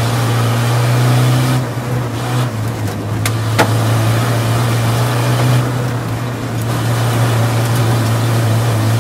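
Tuned Land Rover Defender Td5 2.5-litre five-cylinder turbodiesel running hard at steady high revs up a gravel climb, with gravel rushing under the tyres. Two sharp clicks a little over three seconds in, stones striking the underbody.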